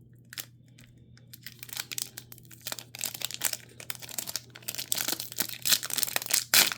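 Crinkling and crackling of plastic trading-card packaging being handled, faint at first, then rapid irregular crackles from about a second and a half in, with a sharp louder crackle near the end.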